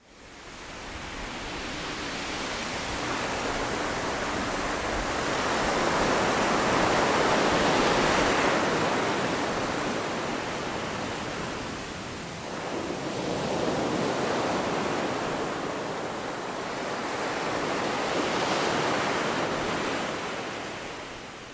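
Sea waves washing on a rocky shore: a steady rush of surf that fades in and swells and eases in three slow surges.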